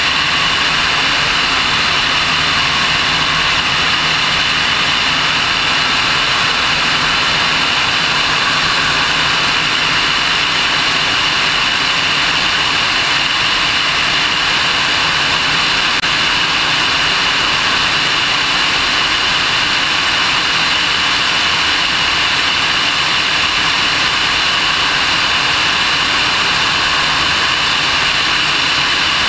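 Pitts biplane's piston engine and propeller running steadily in flight, heard through an onboard camera as a loud, unchanging drone mixed with wind rush.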